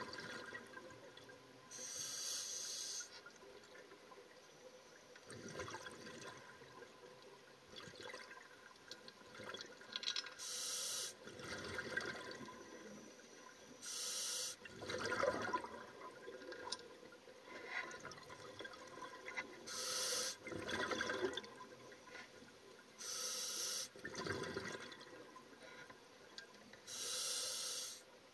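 A scuba diver breathing through a regulator, heard underwater: about six breaths, each a short, sharp hiss of inhaled air followed a second or two later by a longer burst of exhaled bubbles.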